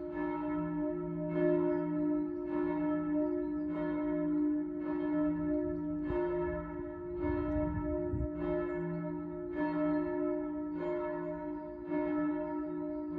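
Church bells ringing from the tower, struck evenly about once every 1.2 seconds, each stroke's tones humming on into the next. A short low rumble comes about seven seconds in.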